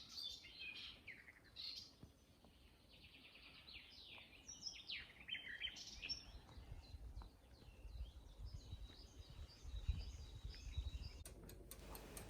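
Songbirds chirping and twittering faintly, many short calls overlapping, with a low rumble in the second half.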